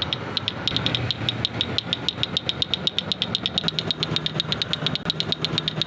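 Wooden toy rattle being shaken: a fast run of sharp wooden clicks, about eight a second, quickening in the second half. A steady low hum runs underneath.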